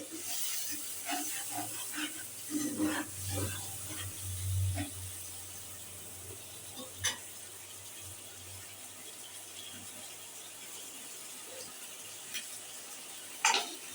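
Watery masala gravy simmering in a kadai with a steady low hiss. Utensils knock and clink several times in the first few seconds, once sharply about halfway, and clatter near the end.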